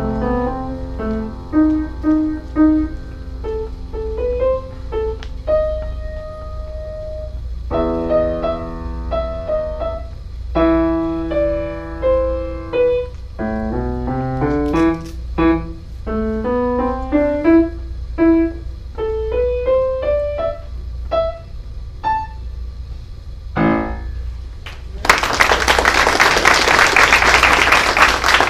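Solo piano playing a short recital piece, a mix of single-note lines and chords, ending on a final chord about 24 seconds in. Audience applause starts about a second later and runs on. A low hum sits underneath.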